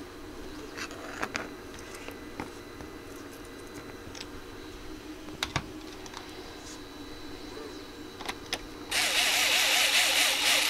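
A small electric screwdriver whirs for a second or two near the end, driving a screw into a turntable's pitch control board; it is the loudest sound here. Before it come light clicks and taps of parts being handled and set in place.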